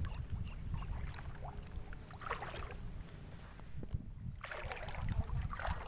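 Water sloshing and splashing around the angler, over a steady low rumble.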